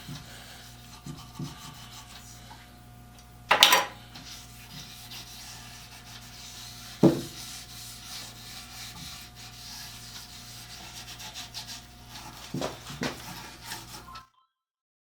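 A rag wiping and rubbing boiled linseed oil onto a wooden vise chop: a soft, continuing scrubbing against the wood over a steady workshop hum. It is broken by a loud scuff about three and a half seconds in, a sharp knock about seven seconds in, and a few lighter knocks near the end, before the sound cuts off abruptly.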